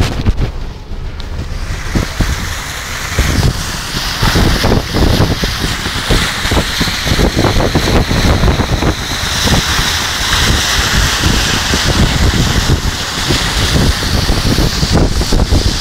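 Wind buffeting the microphone over a loud, steady rush, with many irregular knocks and thuds.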